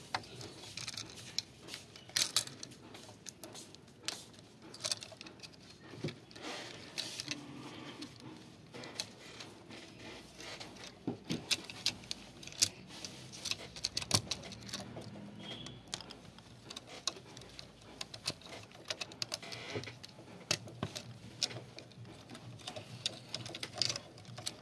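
Irregular small clicks and taps of plastic wire-harness connectors being handled and pushed into the sockets of a note-counting machine's circuit board.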